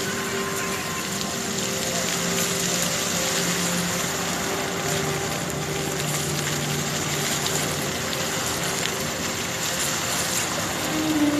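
Water jets of a musical fountain hissing and splashing steadily into the pool, with faint music holding long notes underneath.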